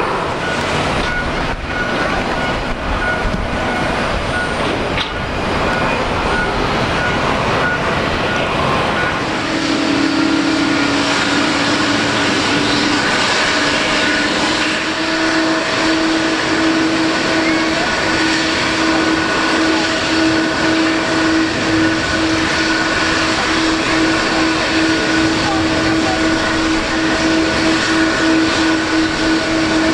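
Boeing 777-300 jet engines running with a loud, steady rush; about nine seconds in, a steady whine of several tones joins in and holds.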